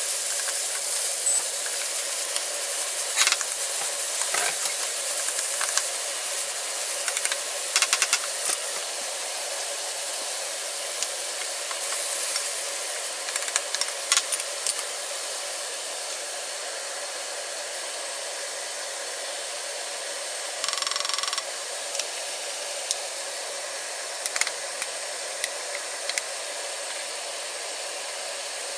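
Steady hiss of food frying in a pan, easing off slightly, with scattered sharp clicks of utensils and a brief louder scrape about two-thirds of the way through.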